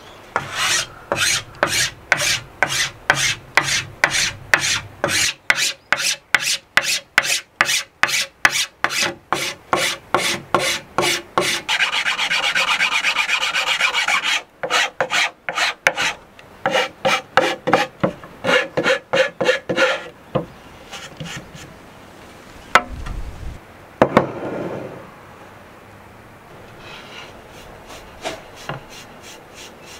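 Hand file rasping a pine block in quick back-and-forth strokes, about two to three a second, with a continuous scrape partway through. The strokes stop after about twenty seconds. A couple of knocks follow, and near the end there is fainter rubbing of steel wool working wax into the wood.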